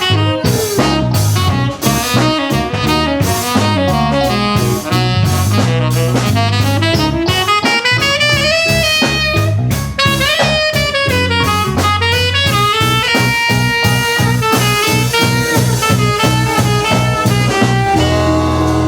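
Live jazz band playing an instrumental break: a saxophone solo of gliding, bending lines over a busy drum kit and bass. Near the end the drums drop out, leaving a held chord.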